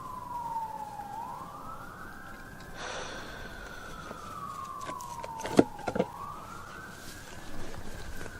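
Emergency-vehicle siren wailing, its pitch sweeping slowly down and back up over and over. Two sharp knocks sound over it a little past halfway.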